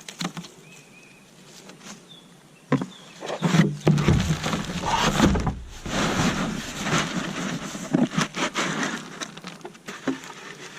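Potting soil tipped out of a potato bucket and worked through by hand: rustling and scraping start suddenly about three seconds in, with a low rumble for a couple of seconds, then loose dirt crumbling with small knocks and clicks.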